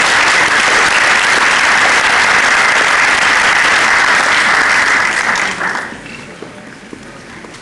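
Audience applauding, a steady clapping that dies away about six seconds in.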